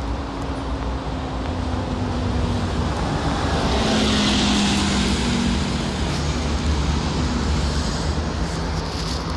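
Road traffic beside the footpath: a steady low rumble of passing cars, with one vehicle's tyre hiss swelling louder about four seconds in and fading away again.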